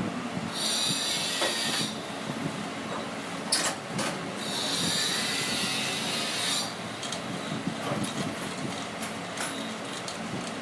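Busy canteen noise with two high squealing hisses, the first about a second long, the second about two seconds, and a couple of sharp clinks between them.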